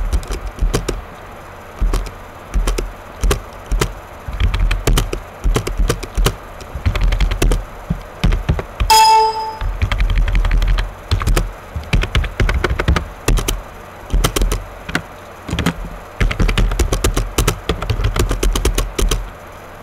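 Computer keyboard keystrokes: single taps and quick runs of typing with pauses between, with dull thuds under the key clicks. About nine seconds in, a short computer alert ding sounds once.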